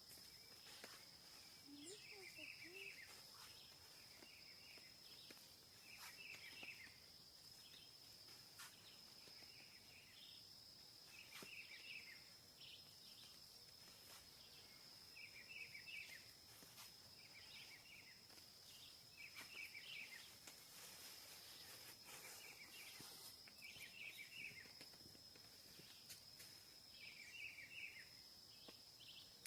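Faint forest insect chorus: a steady high-pitched drone, with short clusters of chirps repeating about every two seconds.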